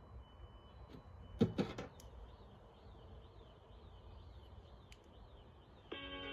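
Two sharp knocks about a second and a half in over a faint low hum, with a thin warbling high tone in the middle. Music with plucked or piano-like notes starts near the end.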